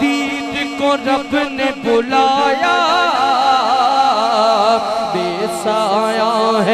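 A male naat reciter singing unaccompanied devotional melody into a handheld microphone. He draws out long, ornamented, wavering notes rather than clear words.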